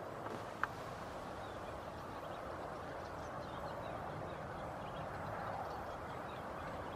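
Steady outdoor background noise, a soft even hiss, with one sharp click about half a second in and a scatter of faint, high, short chirps in the middle.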